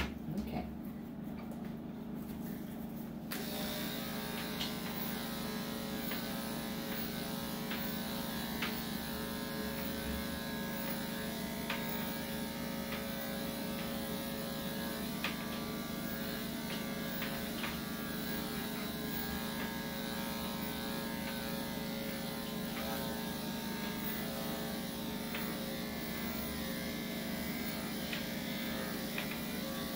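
Electric dog grooming clippers fitted with a 3/4-inch blade start running about three seconds in and run steadily as they clip a Yorkshire Terrier's coat, with a few faint ticks.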